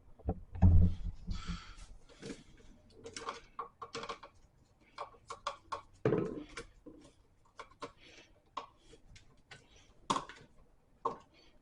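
Screwdriver tightening the green ground screw on a GFCI receptacle, with scattered small clicks and scrapes of metal on plastic, and a couple of louder low knocks about a second in and about six seconds in.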